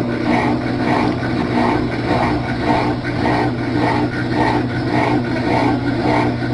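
Consul Facilite washing machine in its spin cycle: a steady motor hum with a rhythmic scraping, rubbing noise that repeats a little under twice a second. This is the spin-cycle noise that has persisted since the machine's mechanism (transmission) was replaced, its cause still undiagnosed.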